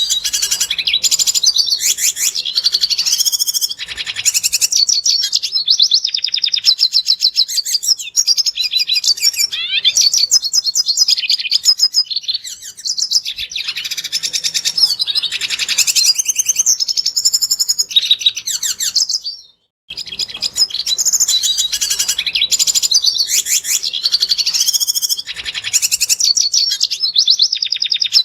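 Red siskin singing a fast, continuous twittering song of high chirps and trills, broken once by a brief gap about two-thirds of the way through.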